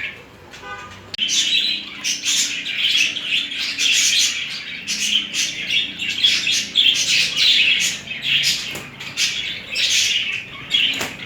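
Budgerigars chattering and warbling: a dense stream of rapid, high chirps that starts about a second in and keeps going without a break.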